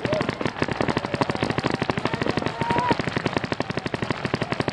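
Many paintball markers firing at once in a dense, unbroken rattle of rapid pops, several a second, overlapping from different distances.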